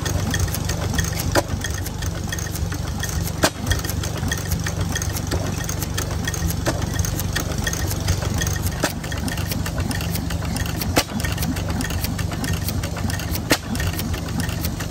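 A 7 HP Fuller and Johnson antique stationary gas engine running steadily. It is throttle-governed rather than hit-and-miss, so it fires on a regular cycle instead of coasting between bursts. A sharp click stands out every two seconds or so.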